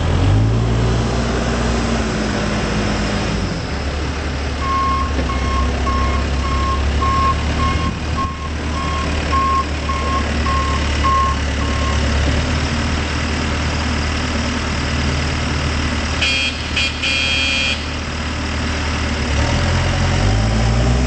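Case 580M backhoe loader's diesel engine running, its revs rising at the start, dropping back after a few seconds and rising again near the end. Its reversing alarm beeps about a dozen times, a little under two beeps a second, as the machine backs up. A brief high-pitched sound comes about three-quarters of the way through.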